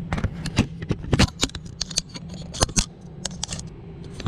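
A quick, irregular run of sharp clicks and rattles of small hard objects being handled, about fifteen of them, thinning out after about three seconds.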